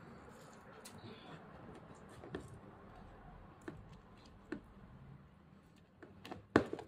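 A lemon being squeezed by hand over sliced beef in a plastic tub: faint squishing with scattered light clicks and taps, then a couple of sharper clicks near the end.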